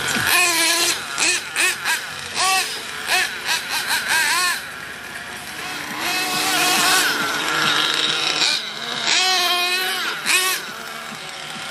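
Thunder Tiger ST-1 nitro RC truggy's small two-stroke engine running on track, its whine rising and falling again and again as the throttle is blipped and released through the corners, with longer pulls in the second half.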